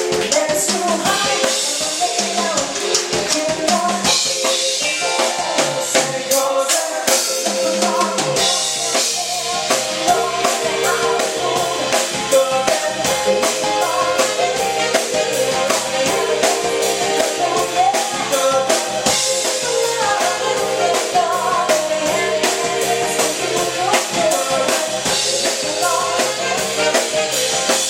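A live band plays, with drum kit, bass and keyboard. The bass drops out for about two seconds around six seconds in, then comes back in under the drum beat.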